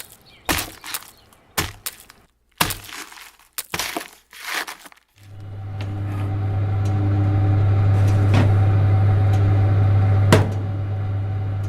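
A run of about six sharp crunching, breaking impacts, then a steady low electrical hum that swells in and holds, with a single click near the end.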